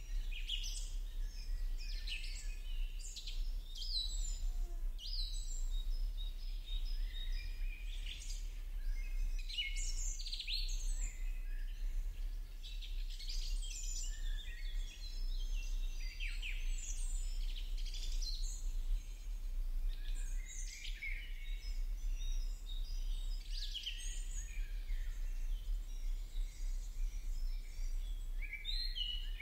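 Many small birds chirping and twittering without pause, their short calls overlapping. A low steady hum runs underneath.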